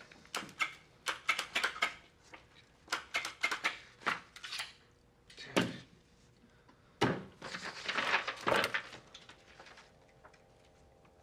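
Sheets of paper rustling and being handled on a desk, with small clicks and knocks, then a desk telephone handset picked up. A faint steady tone follows near the end.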